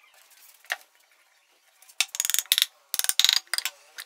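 Bursts of rapid metallic clicking and rattling, loudest from about two to three and a half seconds in, as the aluminium crankcase halves of a motorcycle engine are separated and one half is lifted off.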